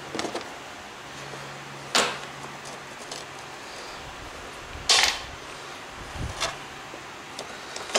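Sharp clanks and knocks of a cordless drill and bolts being handled against a Polaris RZR's frame while the bed is bolted on. The two loudest strikes come about two and five seconds in, with a few lighter taps between them.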